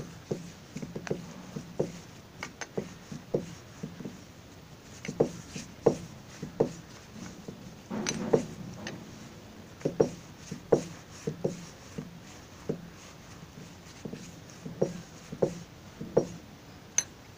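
Hands rolling a log of maida dough on a granite counter: irregular soft slaps and taps of palms and dough against the stone.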